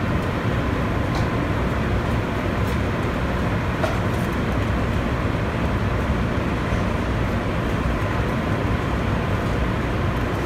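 Steady, loud roar of a commercial kitchen's ventilation, with a low rumble and a faint steady hum. A few light clicks of a spoon against a steel mixing bowl in the first few seconds.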